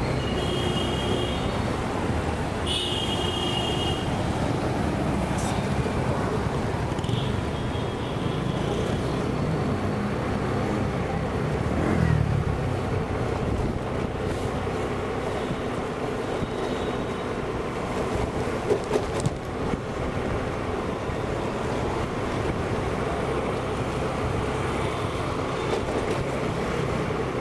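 Honda Dio scooter riding through city traffic: its small single-cylinder engine running steadily under road and wind noise, with a couple of short vehicle-horn toots near the start.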